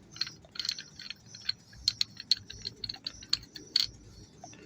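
Light metal clicks and taps, a dozen or so at uneven spacing, from the parts of a multi-tool survival axe being handled.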